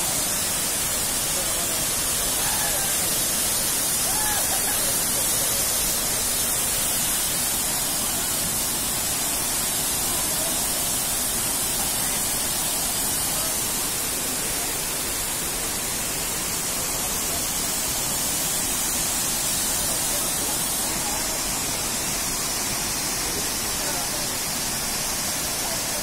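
Steady rush of Dudhsagar Falls pouring into its plunge pool, an even, hissing roar of falling water that does not change.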